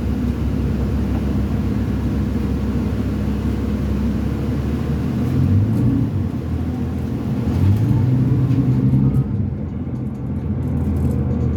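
2005 New Flyer D40LF transit bus's Cummins ISL diesel engine, heard from inside the bus, running under way with a steady low rumble. It swells louder about halfway through and again a couple of seconds later, then eases off near the end.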